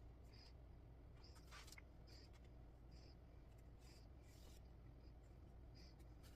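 Faint short rasps of embroidery thread being drawn through the cross-stitch fabric, recurring irregularly about once a second over a low room hum.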